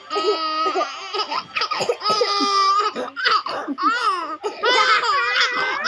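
Baby laughing hard in repeated high-pitched peals and squeals, set off by an older sibling's coughing.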